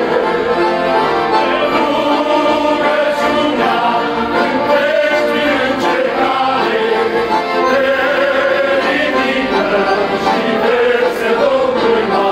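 A group of voices singing a Romanian Christian song together, accompanied by several piano accordions playing steadily.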